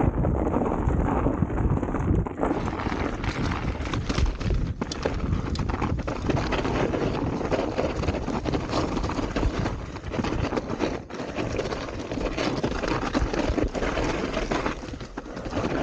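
Enduro mountain bike ridden over a snowy trail: a continuous rumble of tyre and trail noise, with quick rattling knocks from the bike over bumps and wind buffeting the microphone.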